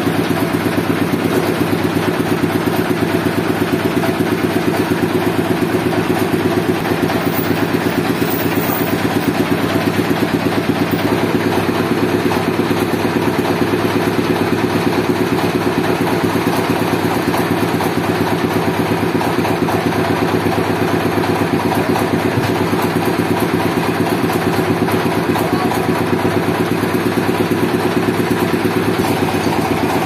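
An engine running steadily at idle with a fast, even chug that does not change.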